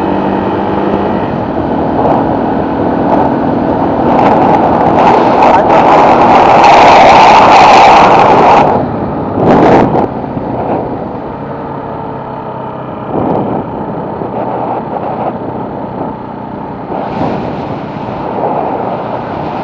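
Moped ride heard from the machine: wind rushing over the microphone with the moped's engine running underneath. The wind noise swells loudest from about four to nine seconds in, then eases.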